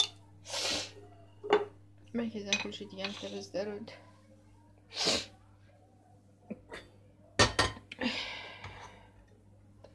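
Kitchenware being handled around a gas stove: scattered clinks and knocks of dishes, glass and a steel teakettle, the loudest a sharp double knock about seven and a half seconds in. Short breathy hisses come and go between them.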